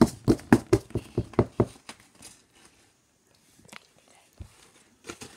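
A quick run of about nine sharp knocks and crunches in under two seconds from a homemade cardboard-box vending machine, then faint rustling and a few clicks as a paper-wrapped prize is pushed out through its hole.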